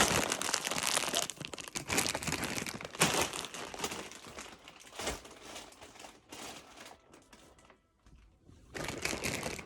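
Crinkly chip bags and snack packaging rustling and crackling as they are handled and moved, with a couple of sharp knocks in the middle; the rustling dies down for a moment near the end, then starts again.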